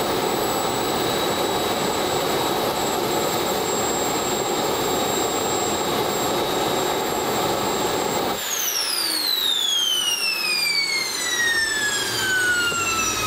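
Small RC jet turbine engine running on Jet A fuel at about 33,000 rpm, a steady roar with a high whine. About eight seconds in the fuel is shut off: the combustion roar cuts out suddenly and the turbine spools down with a steadily falling whine as it enters its cooling cycle.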